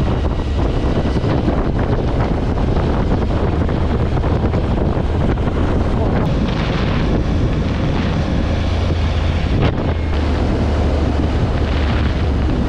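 Heavy wind buffeting the microphone of a camera on a moving motorcycle, over the engine's steady low drone.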